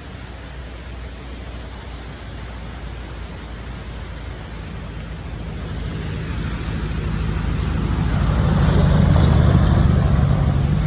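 A Bugatti approaching and driving past, its engine growing steadily louder to a close pass about nine seconds in, over a steady background hiss.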